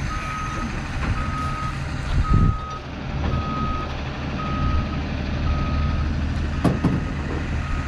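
Forklift backing up: its reversing alarm beeps steadily, about once a second, over the low running of its engine. Two dull thumps come about two and a half and seven seconds in.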